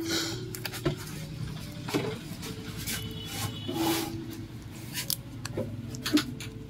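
Irregular clicks and short scrapes from an opened Redmi 7 smartphone being handled, its glued-in battery pried at by hand along the frame edge.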